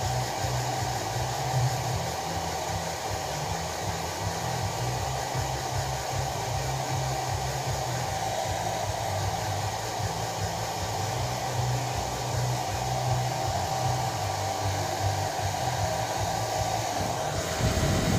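Handheld hair dryer blowing air onto a long-haired cat's fur, a steady rushing hiss with a constant whine. The whine drops out near the end.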